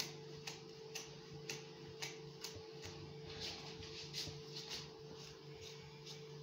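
Faint, regular ticking, about two ticks a second, over a steady low hum.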